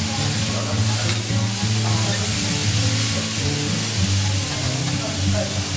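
Bean sprouts sizzling on a hot steel teppanyaki griddle as a metal spatula and fork turn them. Background music with held low notes plays over the sizzle.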